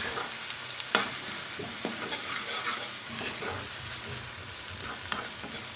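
Onions, curry leaves and ginger-garlic paste sizzling steadily in ghee and butter in a kadai on a low flame. A spatula scrapes and knocks against the pan now and then as it stirs.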